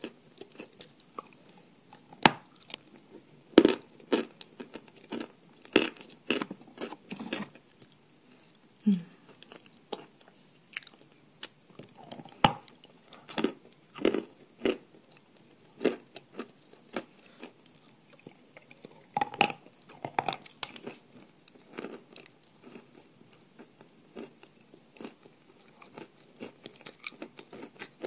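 A person biting and chewing dry clay: irregular sharp crunches and cracks, bunched in clusters, with quieter chewing between them.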